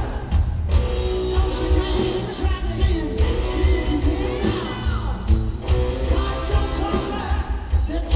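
A live rock band playing in a large arena: drums with a heavy, pulsing low end, electric guitar and a lead singing voice.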